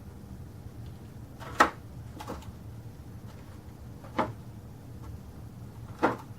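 A paint-covered water balloon smacking down onto a painted canvas in a balloon smash: three short slaps about two seconds apart, the first the loudest, with a fainter one just after it.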